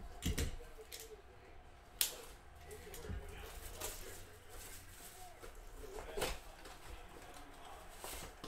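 Hands opening a cardboard trading-card box and its paper and foil contents: scattered sharp snaps and scrapes of cardboard with rustling in between, the loudest snap about two seconds in.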